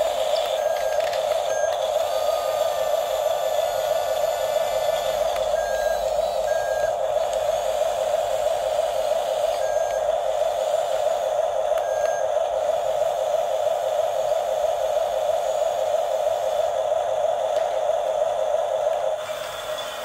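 Small electric drive motors and plastic gearboxes of toy RC bulldozers whirring steadily as they drive and push, with a wavering hum and brief high beeps now and then. The whir drops in level near the end.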